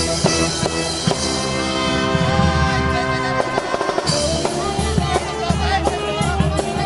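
Brass marching band striking up a number all at once: held brass chords over snare and bass drum, moving into a busier melody about four seconds in.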